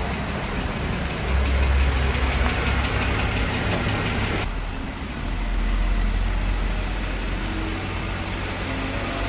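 Jeep Wrangler JK engine running, with a fast, even ticking over the engine sound in the first half: the engine ticking noise that is to be repaired. The sound changes abruptly about halfway, after which the ticks are much less distinct.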